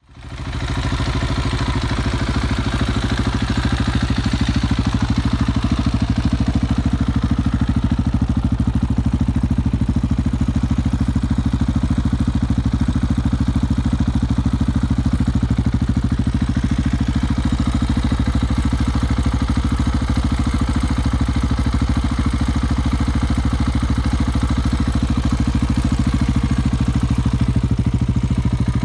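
2016 Husqvarna 701 Supermoto's single-cylinder engine idling steadily through an Akrapovic slip-on exhaust, fading in over the first second.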